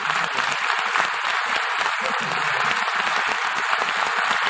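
Large theatre audience applauding steadily: many hands clapping at once, with no break.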